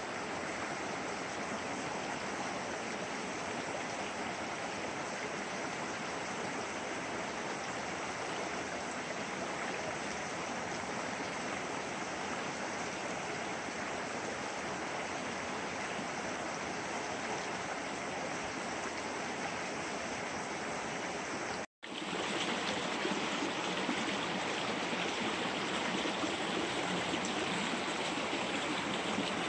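Shallow rocky stream rushing over stones: a steady wash of water noise. It breaks off for an instant about three-quarters of the way through, then carries on slightly louder.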